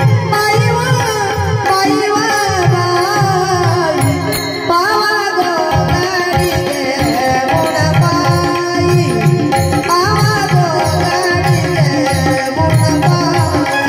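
Tabla playing a steady rhythm, with a short break about six seconds in, under a bulbul tarang melody and a woman singing.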